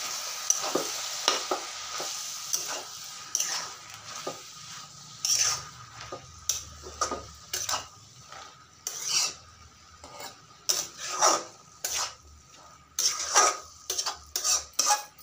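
A metal spatula scraping and knocking against an aluminium kadai as leafy greens, potato and tomato are stirred and turned over, in irregular strokes that come thicker near the end. A light sizzle underneath fades over the first few seconds.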